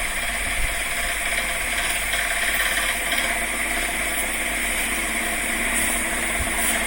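A steady mechanical hum with hiss, unchanging throughout.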